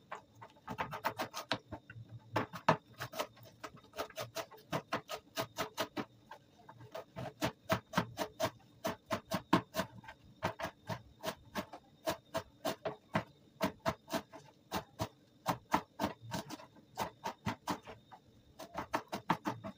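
Kitchen knife chopping fresh coriander on a plastic cutting board: quick, uneven taps of the blade on the board, several a second, with short pauses.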